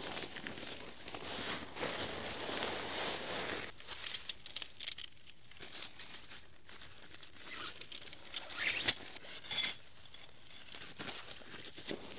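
Nylon camping-gear fabric rustling and crinkling as it is handled and packed. It runs steadily for the first few seconds, then breaks into scattered short rustles, with two sharp clicks about nine seconds in.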